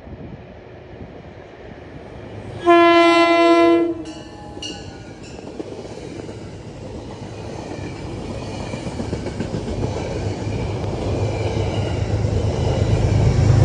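Train horn sounding one loud blast of a little over a second, a chord of several tones, echoing briefly off the surroundings. Afterward the rumble of an approaching train builds steadily louder.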